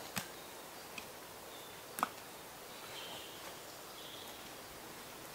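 A campfire being tended, with a few sharp snaps and knocks of wood, the loudest about two seconds in, over a quiet woodland background with faint high chirps.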